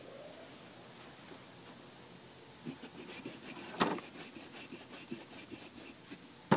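A knife sawing back and forth through a pumpkin's rind, cutting out an eye: a quiet start, then quick rasping strokes from about a third of the way in, with one louder crack near the middle.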